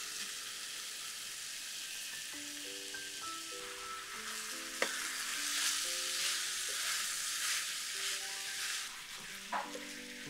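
Tomato sauce sizzling in a frying pan as raw rice is stirred into it with a wooden spatula, the sizzle and scraping loudest in the middle, with one sharp click about five seconds in. Soft background music underneath.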